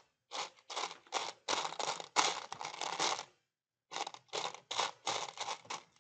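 Hands handling LEGO pieces: a run of short, irregular scraping and rustling sounds as a googly-eye piece is pressed onto a brick and pieces are searched through in the storage bin, with a brief pause just past the middle.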